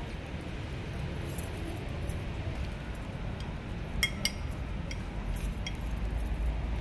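Small metal jingle on a cat wand toy clinking as a kitten bats at it: a few sharp clinks, the two loudest about four seconds in. A steady low rumble runs underneath.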